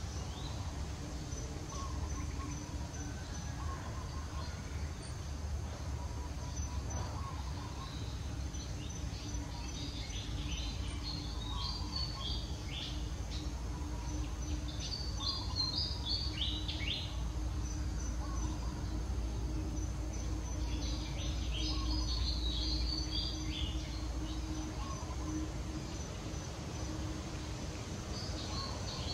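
Outdoor ambience: a steady low rumble with bouts of quick, high chirping from birds, over a faint steady insect-like whine.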